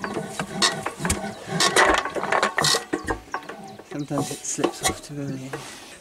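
Hand-cranking a 6 HP single-cylinder Bamford diesel stationary engine: a series of mechanical clicks and knocks from the starting handle and flywheel. The engine does not fire.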